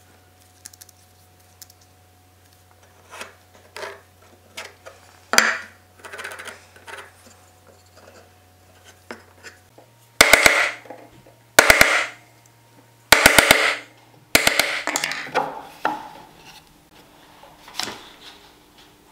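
Hand chisel cutting into an oak crossbow stock: four loud bursts of quick sharp strikes about a second and a half apart, starting about ten seconds in. Before them, faint scratching and light knocks from pencil marking and handling the wood.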